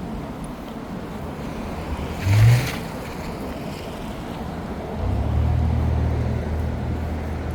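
Street traffic: a steady rush of passing vehicles, with a brief loud whoosh about two and a half seconds in and a low engine rumble that sets in about five seconds in.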